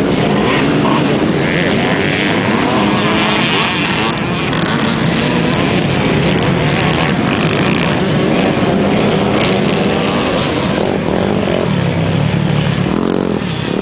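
A pack of off-road motorcycles racing, many engines running hard at once in a dense overlapping drone. Near the end one engine comes through louder and deeper.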